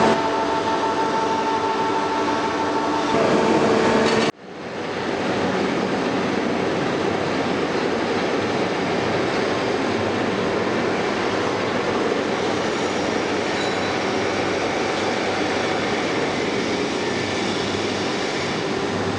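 Mazak Integrex e-650H-II CNC turning centre running, a steady machine hum. For the first four seconds several steady whining tones sit over the hum. About four seconds in the sound cuts out for an instant and comes back as an even, rushing running noise.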